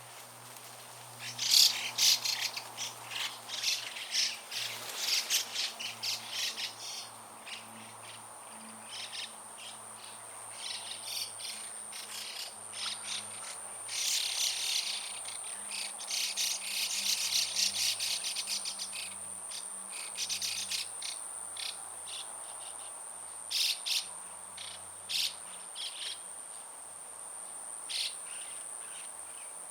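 Small songbirds chirping and calling in quick repeated notes, with loud flurries about a second and a half in and again around the middle, over a steady high-pitched insect trill.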